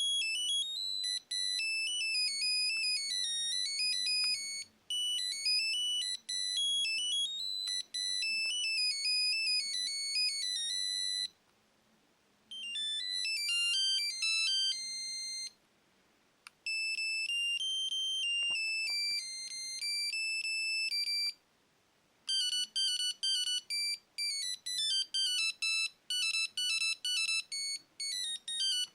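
Nokia 7110 mobile phone playing its preloaded monophonic ringtones in turn: high, beeping single-note melodies. Four tunes play, with short breaks between them.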